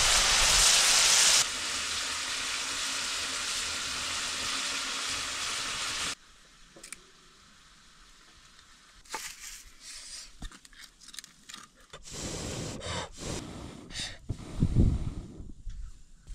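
Chicken frying in a hot pan: a loud, steady sizzle that drops to a lower level about a second and a half in and stops abruptly about six seconds in. The rest is quieter, with scattered clicks, knocks and scraping.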